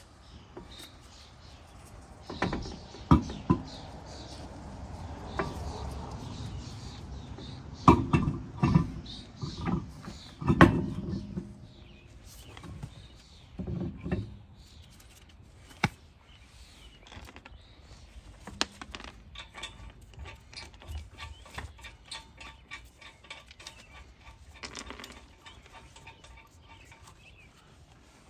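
Metal tools and brake parts clanking and knocking during rear brake work, with several sharp knocks in the first half and a run of quick, light metallic clicks later on.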